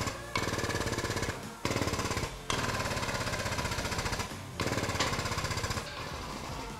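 Air-powered hydraulic pumps of a frame-straightening machine running under foot-pedal control, a fast, even chattering pulse in four runs of one to two seconds with short pauses between. Each run builds pressure in the pulling rams that hold tension on the chained-down frame.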